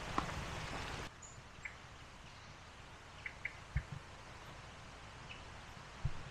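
Footsteps on a leaf-covered forest path for about the first second, then quiet woodland ambience with a few faint, short bird chirps and a couple of soft thumps.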